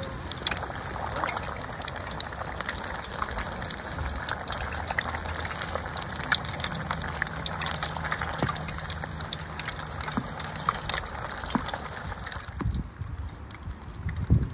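Battered pieces deep-frying in a pot of hot oil: a steady crackling sizzle full of tiny pops. About two seconds before the end the sizzle turns fainter and duller.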